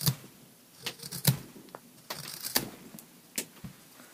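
Sharp homemade wood-carving knife slicing shavings from a block of linden (basswood): about six short cuts, one drawn out longer about halfway through.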